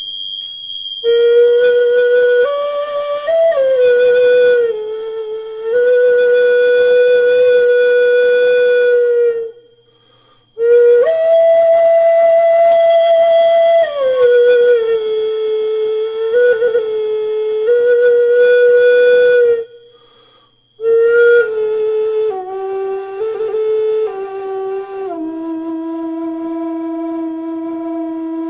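A small gourd-shaped flute playing a slow melody of long held notes in three phrases, each ending in a short pause for breath. A high bell-like tone from a small hand cymbal struck just before rings on under the flute and dies away after about twenty seconds.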